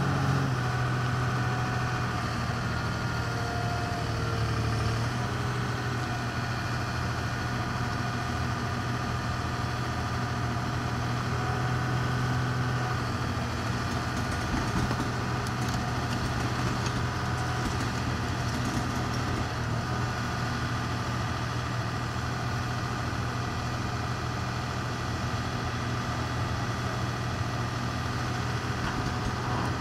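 Heavy diesel engines idling steadily, a low even hum that shifts slightly in pitch about 5 seconds in and again about 13 seconds in.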